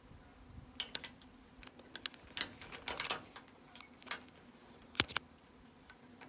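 Padlocks and chain on a gate being handled: irregular sharp metallic clicks and clinks in small clusters, with a short pause now and then.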